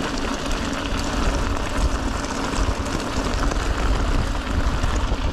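Mountain bike rolling at speed down a gravel track: tyres crunching over loose stones, with heavy wind rumble on the camera microphone and a steady hum underneath.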